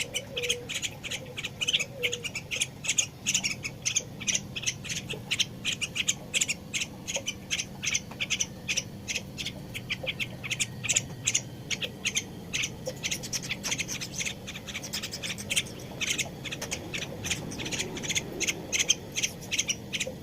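Small bird chirping, a rapid, continuous run of short high-pitched calls, several a second.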